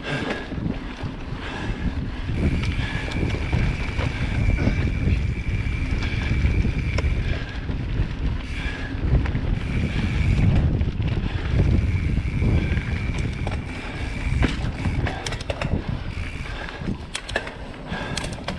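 Mountain bike riding a dirt forest singletrack: heavy wind buffeting on the microphone over the rolling and rattling of tyres and frame on the rough trail, with sharper knocks over roots and stones near the end.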